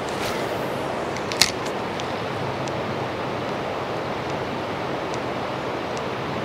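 Steady rushing of flowing river water, with one sharp click about a second and a half in.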